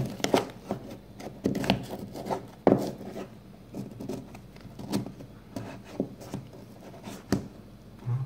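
Plastic bank cards being handled and slid into the slots of a polyester card holder: a series of irregular taps, clicks and scrapes.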